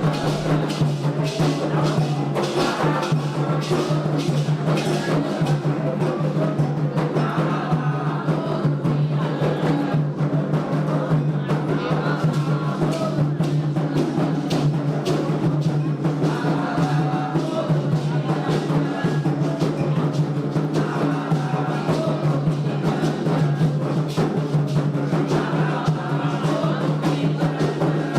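Candomblé ritual drumming on atabaque hand drums, a dense, steady rhythm, with voices singing along.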